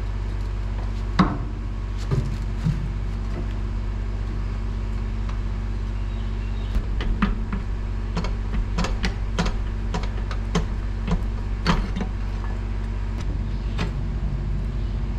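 Steel pry bar clanking and scraping against a stuck transmission top cover and its case as it is worked loose: a series of irregular sharp metal knocks, the loudest about a second in, near twelve seconds and at the end, over a steady low hum. The cover is held up by a shift fork caught against a gear.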